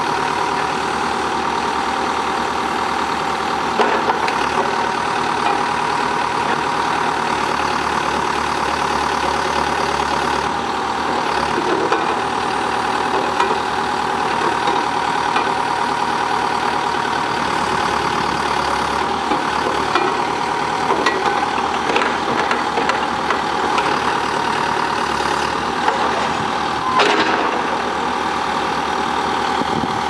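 Terex TLB840 backhoe loader's diesel engine running steadily while the backhoe arm is worked, with a few short knocks along the way.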